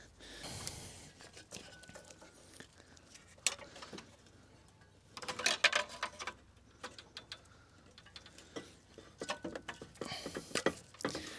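Light clicking and rattling of hand tools and metal and plastic parts as a car's bonnet lock is undone and lifted out, coming in short clusters, busiest about five to six and a half seconds in and again near the end.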